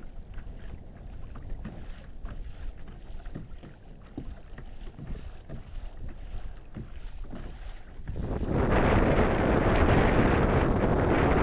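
Water lapping and splashing lightly against a kayak's plastic hull in small, quick ticks. About eight seconds in, loud wind buffeting the microphone takes over.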